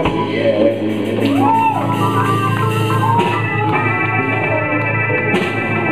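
Live blues band playing, with guitar and drums under a lead line of bent notes, then several notes held steady in the second half.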